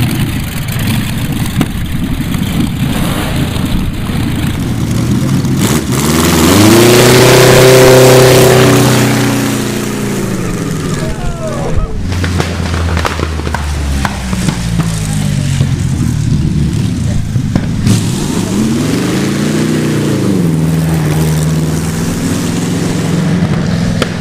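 Napier-Bentley's three-bank W12 Napier Lion aero engine running at low revs. It revs up and falls back twice in slow swells of pitch, and is loudest about a third of the way in.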